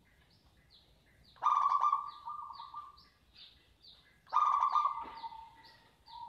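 Zebra dove (perkutut) cooing: two loud rolling coos, about a second and a half in and past the four-second mark, the second ending in a long held note. Another bird chirps in the background, quick high descending chirps about three a second.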